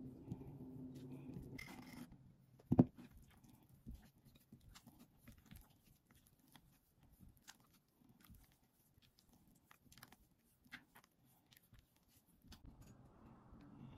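Red silicone spatula scraping and tapping against a glass mixing bowl while folding thick batter, as a run of faint scrapes and clicks. One brief loud sound comes about three seconds in, and a steady low hum is heard at the start and again near the end.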